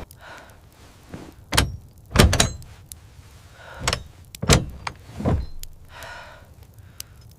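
A series of about five heavy thuds at irregular intervals, each with a short ringing tail.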